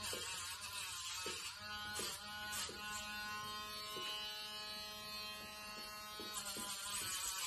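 A small electric motor buzzing steadily at a held pitch, clearest from about two seconds in until about six seconds in.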